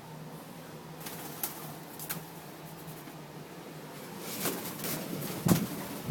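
Indoor handling noises: a few light clicks, then scattered rustling and a loud thump about five and a half seconds in, over a steady low hum.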